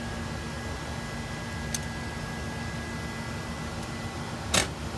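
Steady low hum with fan-like noise, broken by sharp clicks from the metal UPS cabinet and its battery wiring being handled: a faint one about two seconds in and a louder one near the end.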